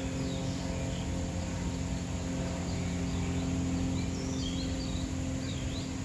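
Steady low mechanical hum with short, high bird chirps and whistles scattered over it, more of them in the second half.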